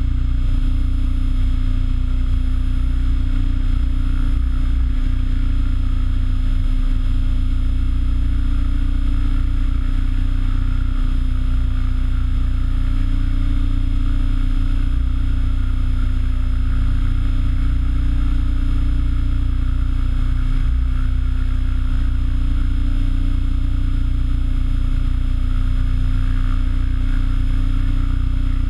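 Align T-Rex 800E electric RC helicopter hovering steadily: the rotor beat, with its electric motor and drivetrain whine, heard from the camera mounted on the helicopter. The sound holds even, with no climbs or descents.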